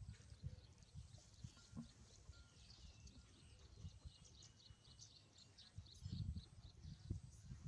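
Faint background of scattered short, high chirps over low bumps and rustle, with the bumps louder about six and seven seconds in.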